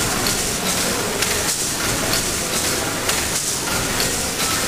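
Bratch pumping station's vertical triple-expansion steam engine running: a steady mechanical clatter with a rhythmic hiss of steam repeating about twice a second.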